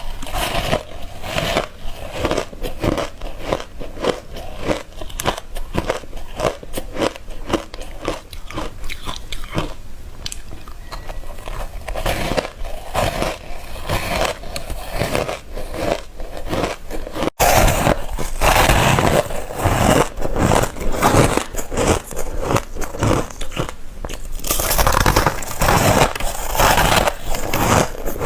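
Close-miked bites into ice: a quick run of crunches. About two-thirds of the way through it jumps abruptly to louder, sharper crunching.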